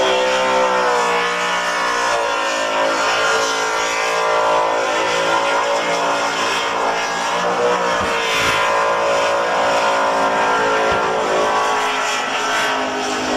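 Car engine held at high revs in a burnout, its pitch wavering up and down as the throttle is worked, over the hiss of spinning tyres.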